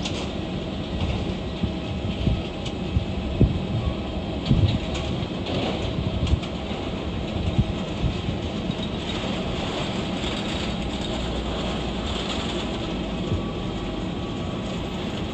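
Steady jet aircraft engine noise with faint steady tones in it, broken by irregular low thumps during the first half.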